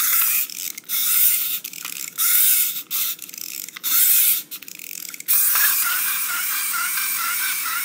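Small electric motor of a motorized toy car buzzing in short stop-start bursts. About five seconds in it settles into running steadily with a warbling whine.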